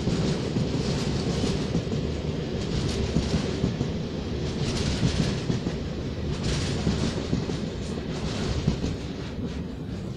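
Freight train wagons rolling along the rails with a steady rumble and a clatter of wheels, growing fainter near the end as the last wagons go by.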